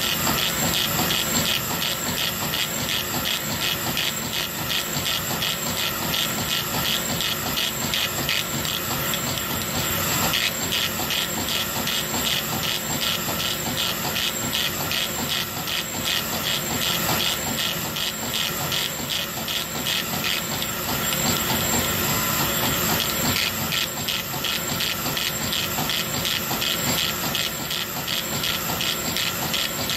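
Laser engraver running a raster engraving job on a wooden spoon: the head sweeps back and forth in a quick regular rhythm over a steady hiss, with a thin high whine throughout.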